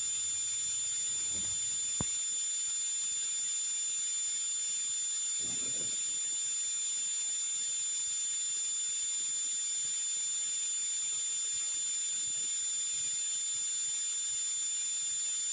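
Steady high-pitched electronic whine over a hiss, with a faint click about two seconds in.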